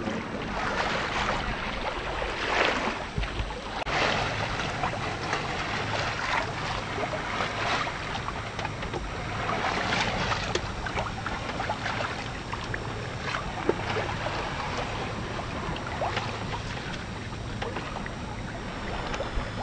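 Water splashing and sloshing against a sailboat's hull while it is under way in choppy water, with wind buffeting the microphone and a faint low steady hum underneath.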